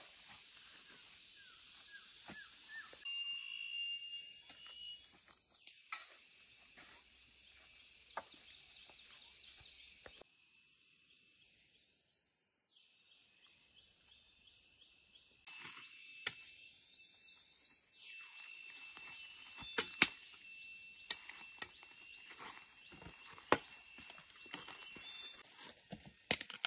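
Outdoor ambience: a steady high hiss and a thin steady tone, with scattered sharp snaps and knocks. The loudest knock comes about twenty seconds in.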